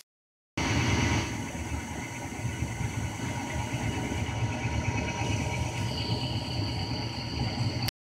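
Gas furnace running with its burners lit: a steady low rumble of flame and fan, with no backfire pop, the burner orifices freshly cleaned. A thin high whine comes in about six seconds in.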